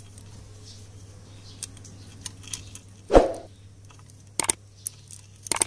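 Light metallic clicks and knocks from the timing chain and camshaft sprocket of a Yamaha LC135 engine being handled into place on the cam, with one louder knock about three seconds in.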